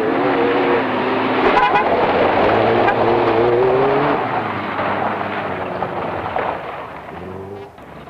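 Rally car engine revving hard as the car accelerates along a gravel stage, its pitch climbing and then dropping at gear changes about one and a half and four seconds in. The engine fades near the end, and another car's engine starts just after.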